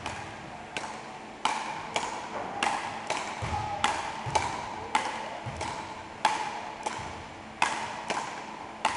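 Frescobol rally: a rubber ball struck back and forth between two wooden paddles, a sharp knock about every half second, echoing in a large sports hall.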